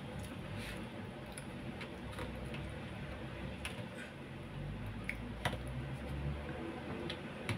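Metal spoon clicking and scraping against a plastic takeaway box while scooping rice and roast duck: scattered sharp clicks, the loudest about five and a half seconds in.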